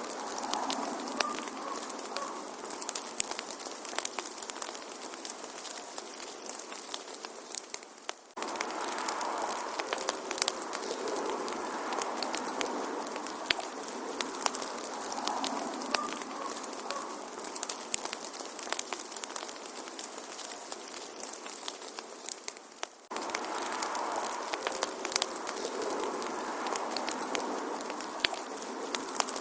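Wood fire crackling, with frequent sharp pops and snaps over a soft hissing bed. The sound fades briefly and cuts back in abruptly twice, about 8 and 23 seconds in.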